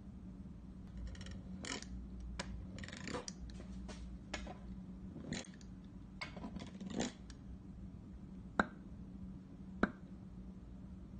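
Plastic Play-Doh cutting tools pressing and scraping through modelling dough against a wooden tabletop: a run of short clicks and scrapes, then two sharp taps about a second apart later on, over a faint steady hum.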